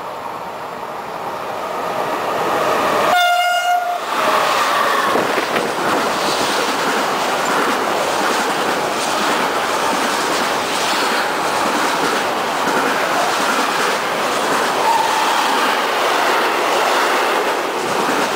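Intermodal freight train passing close by: one short horn blast about three seconds in, then the steady rolling noise and clickety-clack of the wagons going past.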